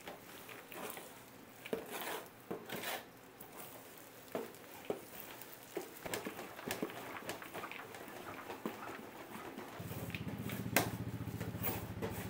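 Irregular clatter of food-preparation work: scattered taps, knocks and clinks of utensils and trays at uneven intervals. A steady low hum sets in about ten seconds in.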